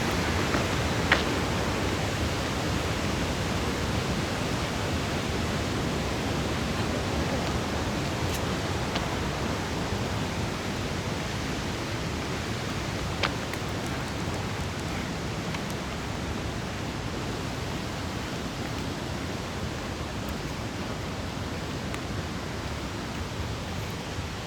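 Crystal Creek waterfall rushing: a steady, full-range roar of falling water carrying lots of water, easing slightly over time. A sharp click about a second in and another about halfway through.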